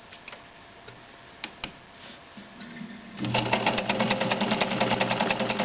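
Necchi BU Nova 1950s Italian sewing machine, set for a very fine zigzag stitch. A few light clicks come first, then about three seconds in the motor comes up and the machine sews at speed with a fast, even clatter of needle strokes.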